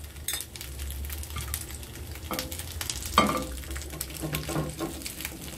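Black cod steaks sizzling and crackling in hot oil on a ribbed steam grill pan, fully browned on both sides. A single sharper click stands out about three seconds in.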